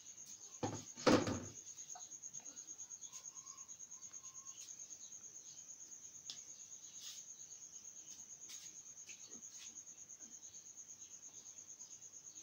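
A high-pitched insect trill pulsing steadily, with one loud thump about a second in and a few faint clicks later.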